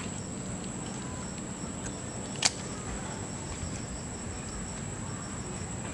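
A steady high-pitched insect drone, with one sharp click about two and a half seconds in.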